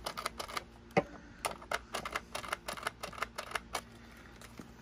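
3.5 mm headphone jack plug being pushed in and out of the Bush PS404 cassette player's headphone socket, making a quick run of small plastic-and-metal clicks and scrapes, the loudest about a second in. The plug is working freshly sprayed contact cleaner into a dirty socket that had been making noise.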